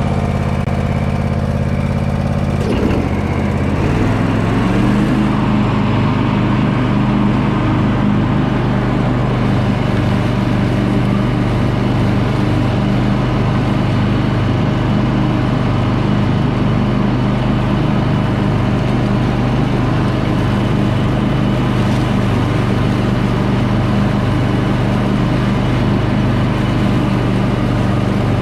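Tractor engine running steadily; its speed climbs between about two and four seconds in, then holds steady.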